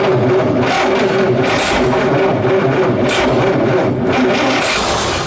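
Freshly rebuilt Chrysler 303 V8 boat engine running on its first start in over 40 years, surging three times as the throttle is blipped, then starting to die away at the very end.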